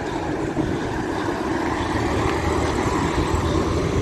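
Steady rumble of vehicle traffic on a city street, growing slightly louder.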